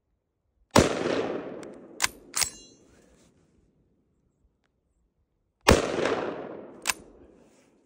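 Two rifle shots from a Steyr M95/30 straight-pull rifle in 8x56 rimmed, about five seconds apart, each followed by a long echo dying away over a couple of seconds. Between them the straight-pull bolt is worked with two sharp metallic clacks, the second ringing, and another clack follows the second shot.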